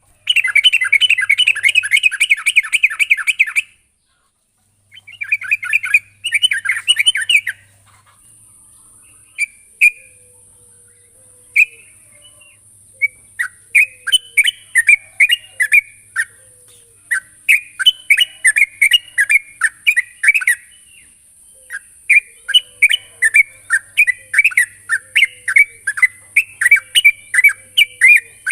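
Yellow-vented bulbul (trucukan) calling. It opens with a fast, harsh chatter that breaks off near four seconds, then chatters again briefly. From about nine seconds on come runs of short, bubbly notes, several a second, over a faint high hiss.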